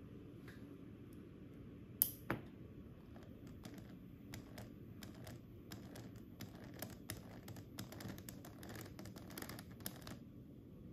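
Home-built axial flux motor stuttering on its driver board: irregular faint clicks and ticks, several a second, as the rotor jerks back and forth without spinning up, over a low hum. There are two sharper clicks about two seconds in. The motor won't run, which the builder suspects is the driver board's fault.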